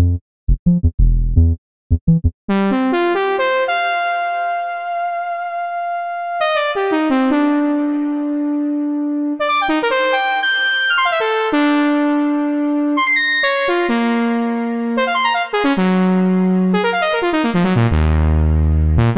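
Spectrasonics Omnisphere software synth played from a keyboard. First come a few short low bass stabs from the 'Velvet Bass' patch. From about two and a half seconds in, the 'Vintage P5 Trumpet' patch, a simple single-oscillator synth-brass sound modelled on a Prophet-5, plays bright sustained melody notes and chords, with low bass notes near the end.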